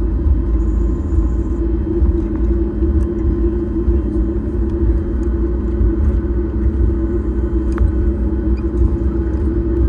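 Steady low rumble inside the cabin of a Boeing 737-8 MAX, with an even hum from its CFM LEAP-1B engines that holds one pitch without spooling up or down.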